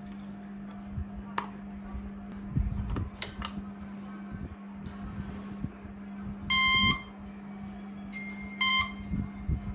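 Two short, loud electric beeps about two seconds apart, over a steady low hum with scattered clicks and knocks.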